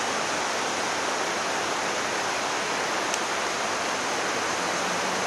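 Shallow river water rushing over a stony bed: a steady, even noise.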